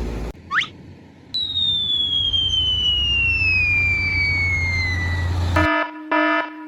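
Sound effects: a brief rising whistle, then a long whistle falling slowly in pitch over about four seconds above a low steady hum. Near the end a loud, buzzing, horn-like chord sounds in three short blasts.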